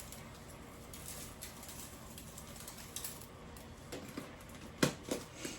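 Faint light taps and rattles of dry seasoning being shaken from shaker bottles onto seafood, with a couple of sharper clicks near the end.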